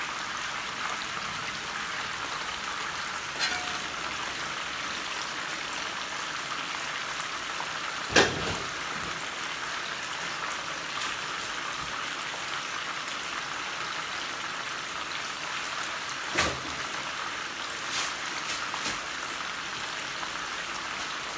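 Food frying in oil in a frying pan, a steady even sizzle, with a few short sharp clicks of pan or lid, the loudest about eight seconds in.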